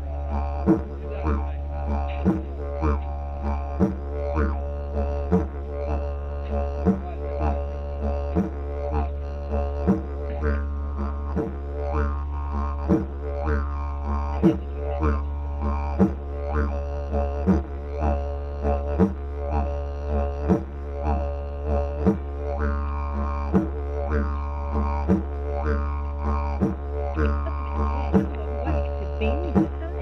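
Background music: a didgeridoo (yidaki) drone with a steady percussion beat.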